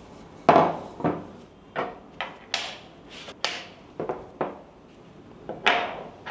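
About a dozen sharp, irregular knocks and clacks as matte-black shower fittings (trim plates, hand shower, shower arm) are taken out of their packing and set down on a wooden tabletop.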